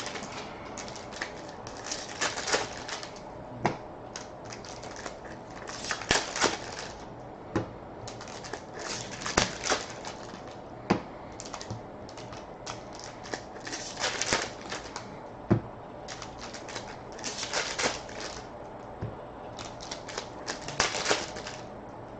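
Hockey trading card packs and cards being handled: wrappers crinkling and tearing in short rustling bursts, with light clicks and taps of cards between them.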